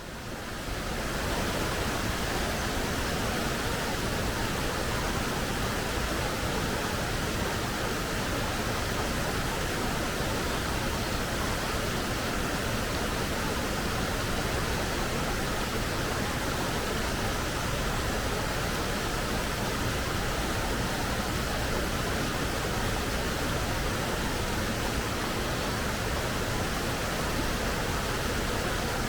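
Forest stream of clear water flowing over and between rocks: a steady, even rush of water that fades in over the first second or so and then holds level.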